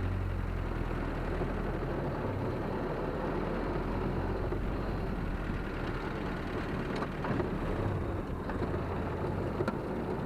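1951 Willys CJ3A's Go-Devil flathead four-cylinder engine running steadily as the Jeep is driven slowly, with a few faint light clicks in the second half.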